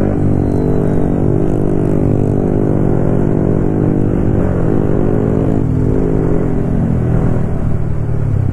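Motorcycle engine running at cruising speed, with road and wind noise. The engine note holds steady, then drops near the end as the bike eases off.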